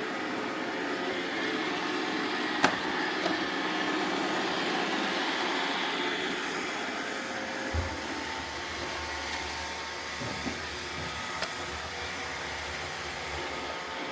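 Roomba robot vacuums running with a steady whirring hum, broken by a few sharp clicks, the loudest about three seconds in, and a low thump about eight seconds in.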